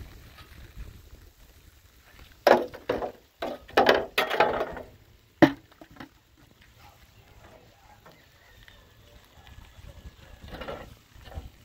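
A steel wheelbarrow clattering as a wooden-handled shovel and broom are laid in its tray: several loud clanks in the first half, then quiet, with a softer rattle near the end as the barrow is moved.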